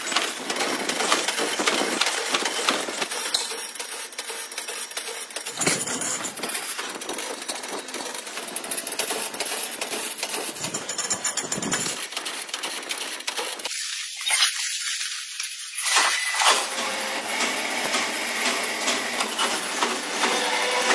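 Factory machinery making oil-filter parts, running with dense metallic rattling and clicking. The sound changes abruptly several times.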